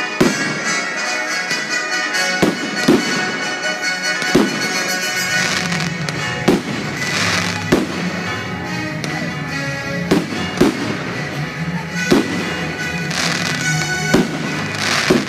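Aerial firework shells bursting in the sky: about a dozen sharp bangs, irregularly spaced roughly a second or so apart, heard over music.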